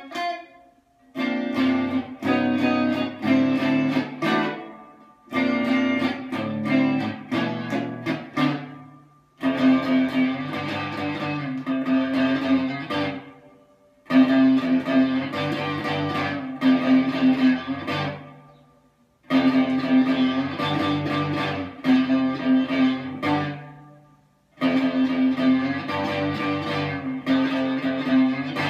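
Electric guitar playing the same riff over and over, in phrases of about four seconds with short breaks between them.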